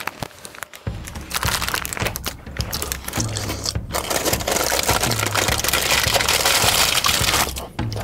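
Paper burger wrapper crinkling and rustling close by as a burger is eaten, starting about a second in and stopping shortly before the end, with background music underneath.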